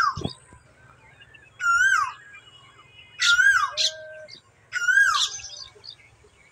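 Asian koel calling: three clear, whistled notes about a second and a half apart, each rising and then falling in pitch.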